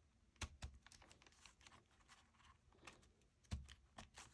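Faint scattered clicks and snips as the end of a piece of paper is trimmed off, with two sharper clicks about half a second in and a few more near the end.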